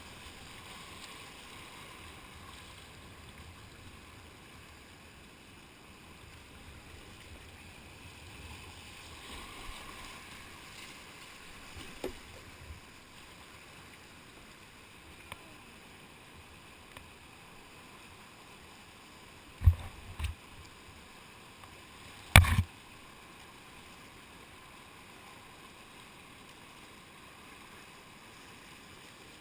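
Whitewater kayak running a river rapid: steady rushing of churning water around the boat. A few sharp knocks cut through it, a small one early, a close pair about two-thirds of the way in, and the loudest just after.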